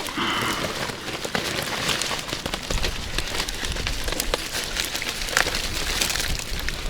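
Wind buffeting the microphone, with a low rumble from about three seconds in, under a constant patter of small crackles and clicks.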